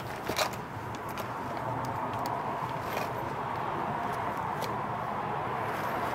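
Scattered light clicks and taps from working a laptop, with a short cluster about half a second in, over a steady room hum.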